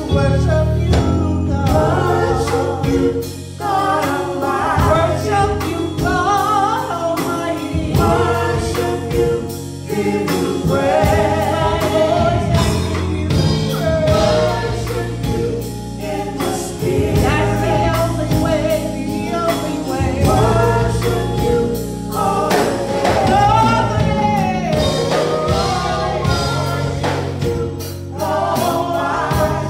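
A small gospel praise team singing together into microphones, with instrumental backing that holds steady low bass notes under the voices.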